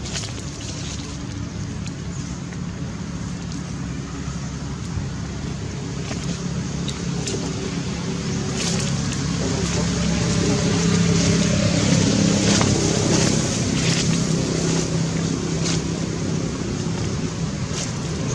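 Engine hum of a passing motor vehicle, growing louder from about eight seconds in and easing off near the end, over steady outdoor background noise with a few faint clicks.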